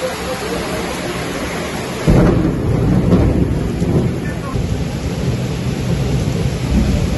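Heavy rain falling steadily. About two seconds in, a loud low rumble sets in under the rain and continues.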